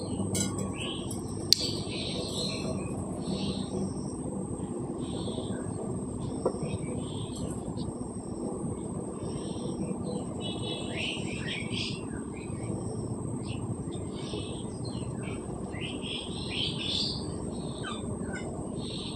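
Small birds chirping again and again over a steady low rushing background, with a sharp click about a second and a half in.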